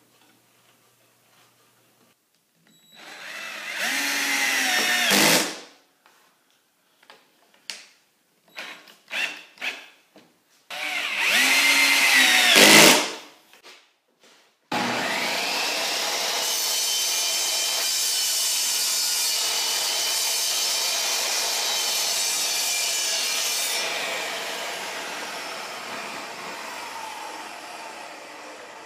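A power drill runs in two short bursts, speeding up and slowing down, with a few clicks between. Then a Craftsman table saw runs steadily for about nine seconds and slowly winds down after it is switched off.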